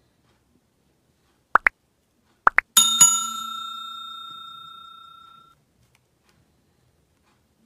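Subscribe-button animation sound effects: two quick pairs of short rising pops, then a single bell ding that rings out and fades over nearly three seconds.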